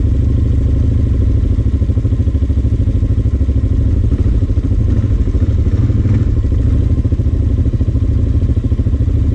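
CFMoto CForce 600 Touring ATV's single-cylinder engine idling steadily while the quad sits stopped, with an even pulse.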